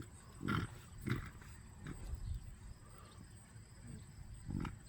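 Six-week-old pit bull puppies making short vocal sounds, four brief ones spread through a few seconds.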